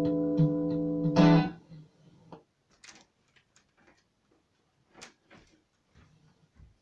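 Home demo recording of a guitar song from a four-track cassette, played back on a CD player into the room. Held chord tones and a steady plucked pulse end on a final strummed chord about a second in, which dies away quickly, leaving only faint scattered clicks.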